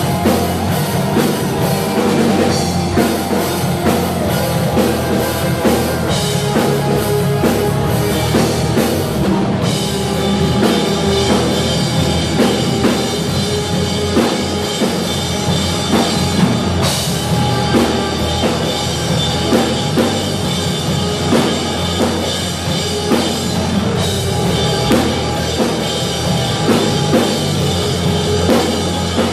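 Live rock band playing: distorted electric guitars over a drum kit, loud and continuous with a steady beat.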